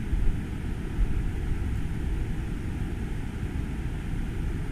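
Low, fluctuating rumble of outdoor background noise, with no distinct events.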